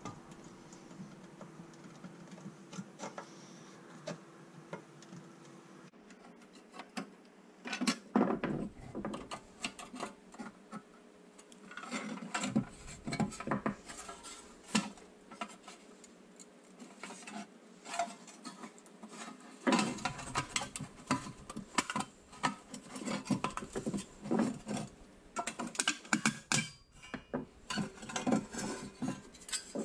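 Pressed-steel Tonka toy truck parts being pried apart and handled: a flat screwdriver scraping and clicking against the painted steel tabs, and the metal cab and chassis pieces knocking and rattling against each other in quick irregular clatters.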